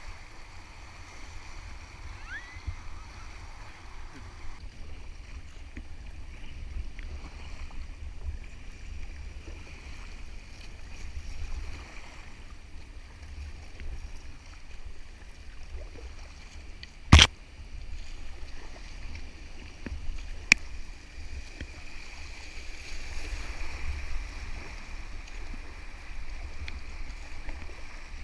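River water rushing and splashing around a kayak running light rapids, with a steady low rumble of wind on the microphone. A loud sharp knock comes about 17 seconds in and a smaller click about three seconds later.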